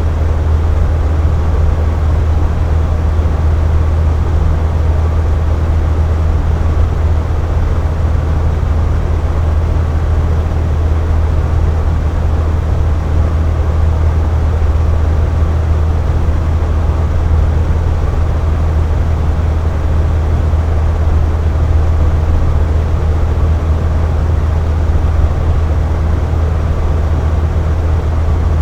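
Air conditioner running steadily: a constant low hum with an even rush of air over it.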